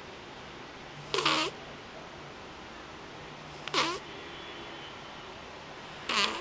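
A domestic cat snoring loudly in its sleep. There are three short, pitched snores about two and a half seconds apart, each sliding down in pitch.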